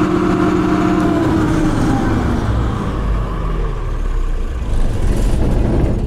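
FG Wilson generator set running down to a stop. It hums steadily for about the first second and a half, then its pitch falls away and a low rumble takes over as the engine slows.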